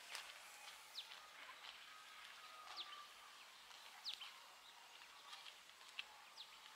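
Faint rural outdoor ambience: a soft hiss with about half a dozen short, high, falling bird chirps scattered through it.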